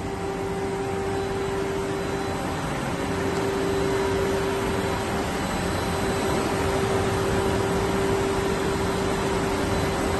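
Steady industrial machinery noise: a constant hiss and hum with a sustained mid-pitched tone, growing a little louder over the first few seconds and then holding.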